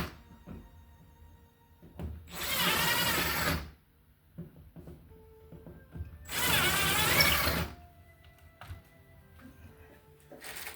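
Power drill running in two bursts of about a second and a half, its whine wavering under load, as the shelf is being fixed to the wall. Faint background music between the bursts.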